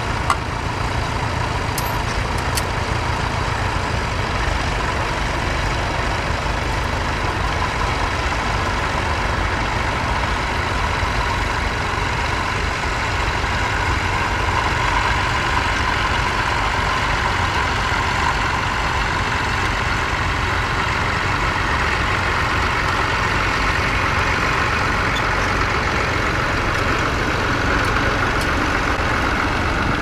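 Vintage tractor engine running steadily under load as it pulls a mounted plough through the soil.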